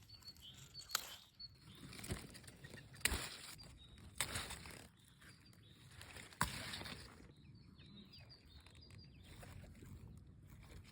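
Strawberries being hand-picked: leaves rustling and stems snapping, with a few sharp clicks, the loudest about one, three and six and a half seconds in.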